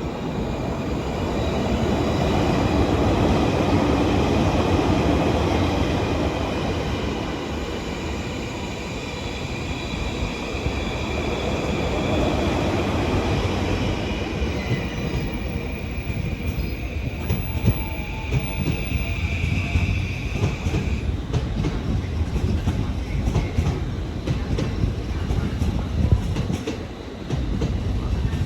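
Chūō-Sōbu Line local electric train running past, with a steady high whine for the first twenty seconds or so, then its wheels clicking in a quick rhythm over the rail joints.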